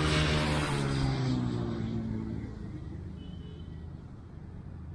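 A motor passing close by, loudest about half a second in. Its pitch falls as it goes past and it fades away over the next few seconds.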